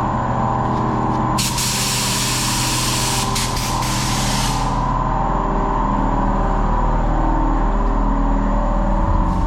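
Paint spray gun hissing as the trigger is held, spraying paint for about three seconds starting a second and a half in. Under it runs a steady mechanical hum.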